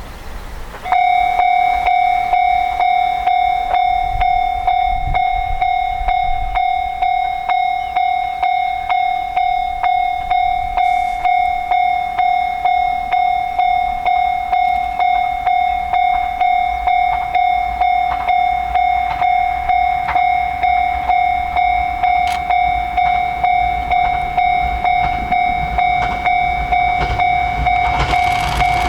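Japanese level-crossing warning bell starts about a second in and rings a rapid, steady train of electronic dings, each the same pitch. Near the end the noise of the approaching E217 series train begins to rise under it.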